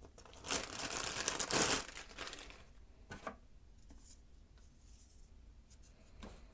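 Clear plastic bag crinkling as a lens hood is pulled out of it, for about two seconds, followed by a few light clicks as the plastic hood is handled.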